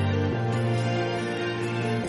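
Background music of slow, held chords, the bass note changing about a third of a second in.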